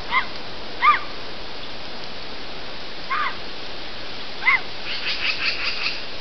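Short whistled chirps from an animal: four single arched calls spaced over the first few seconds, then a quick run of chirps near the end. A steady hiss from the trail camera's microphone runs underneath.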